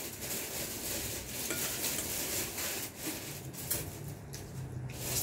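Table noises of people eating: a steady rustling and scraping, with a few light clicks of utensils against plates.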